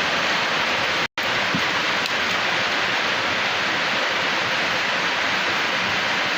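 Steady rush of heavy typhoon rain and floodwater, cutting out for an instant about a second in.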